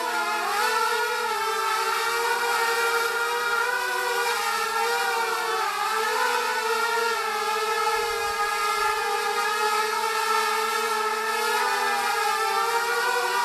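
Mini hexacopter with inverted motors flying: the brushless motors and propellers give a steady multi-toned whine whose pitch wavers up and down as the throttle is corrected.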